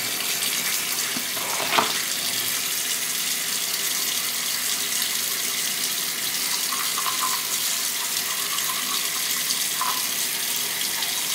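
Bathroom sink tap running steadily, with one small knock a little under two seconds in.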